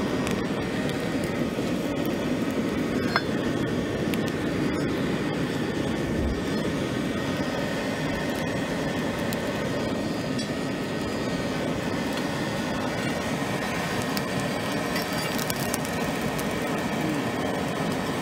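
Charcoal forge running with forced air blown in through a pipe: a steady rushing noise, with scattered small crackles and clinks from the burning charcoal.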